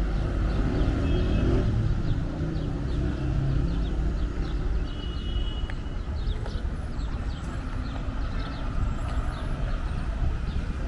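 City street traffic: a steady low rumble of car engines and tyres, with one vehicle's engine louder in the first couple of seconds. Many short high chirps sound over it throughout.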